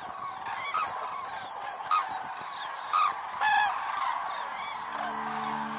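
A flock of common cranes calling, many trumpeting calls overlapping, with a few louder calls standing out. Soft music with held notes comes in near the end.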